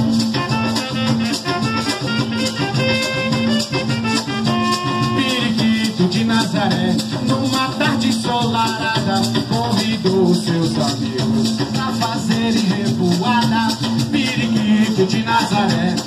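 Carimbó band playing live: drums and a shaken rattle keep a quick, even beat under a plucked-string melody.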